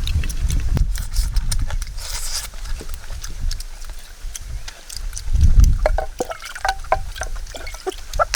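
Water splashing and trickling, with many small clicks and drips.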